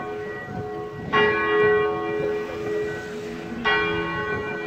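A large tower bell tolling slowly: one stroke about a second in and another near the end, each ringing on long after it is struck.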